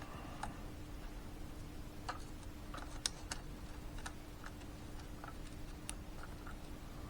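Faint, irregular light clicks and taps, about a dozen scattered through, from small parts being handled, over a steady low hum.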